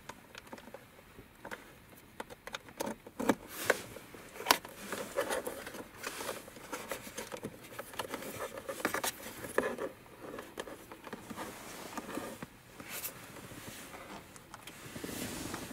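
A USB cable being handled and tucked into a plastic car centre console around its USB port: scattered clicks, taps and scrapes of cable and plastic, sharpest about three to four and a half seconds in.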